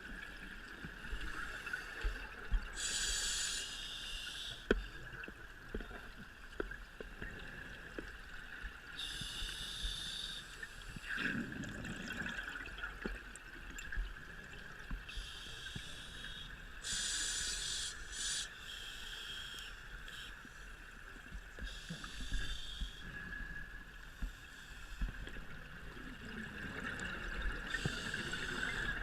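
Scuba diver breathing through a regulator underwater: a burst of exhaled bubbles rushing and hissing every few seconds, over a steady hiss.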